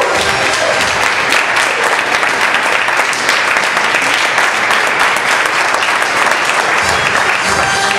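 Audience applauding, a dense sustained clapping, with music starting up again near the end.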